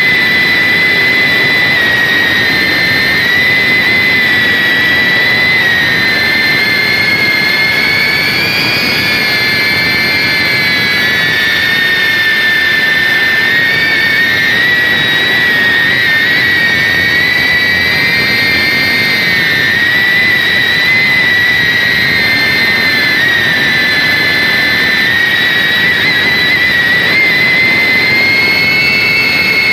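FPV drone's brushless motors and propellers, heard from the camera on board: a loud, steady high whine of several close pitches that drift up and down together as the throttle changes.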